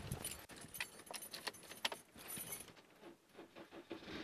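Car keys jangling, with scattered light clicks and knocks.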